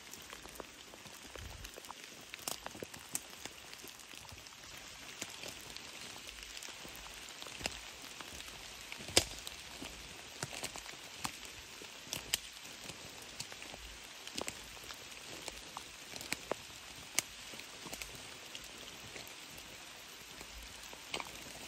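Steady rain hiss with many irregular sharp raindrop ticks, the loudest about nine seconds in, and soft footsteps on a wet forest trail.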